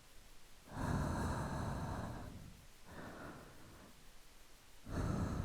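A woman breathing slowly and closely into the microphone: a long, loud breath about a second in, a softer, shorter one around three seconds in, and another long breath starting near the end.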